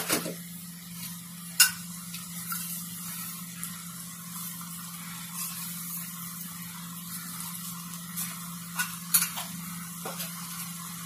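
A steel spoon stirring a thick banana-flower and potato curry in a metal kadai, with a few sharp clicks of the spoon against the pan, about 1.5 s in and a cluster near the end. Underneath, the curry sizzles faintly on the stove over a steady low hum.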